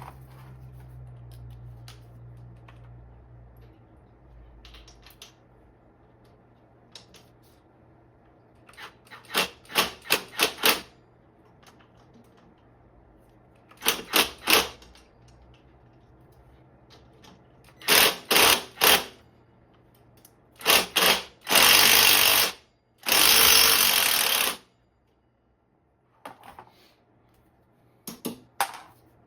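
Rapid metallic ratcheting clicks in short bursts, first a handful of separate strokes, then quicker runs, ending in two unbroken buzzing bursts of about a second each.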